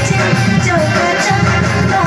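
Loud dance music: a song with a melody line over a steady rhythmic beat.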